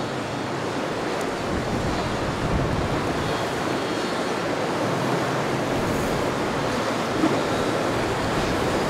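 Rough sea water rushing and breaking, with wind buffeting the microphone: a steady rushing noise that swells slightly, with a brief sharp knock about seven seconds in.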